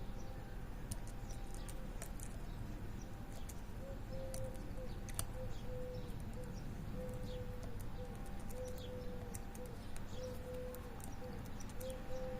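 Faint, scattered metallic clicks of a lock pick and tension wrench working the pins of a pin-tumbler disc brake lock. Birds call in the background, with short high chirps and a repeated low note.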